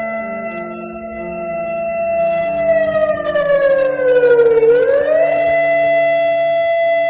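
Emergency alert system alarm: a siren tone holds steady, glides slowly down for about two seconds, then sweeps quickly back up and holds again, over low sustained notes that step from one pitch to another like a slow melody.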